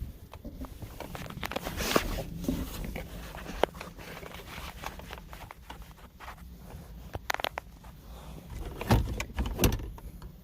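Scattered clicks, taps and rubbing of plastic dash parts being handled as a climate control panel switch is worked loose from its tab, with a few sharper knocks near the end.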